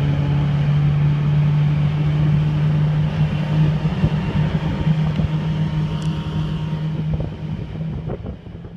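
Mercury 90 hp FourStroke outboard running steadily at speed with the boat on plane, a steady low hum under wind and water rush. It fades out near the end.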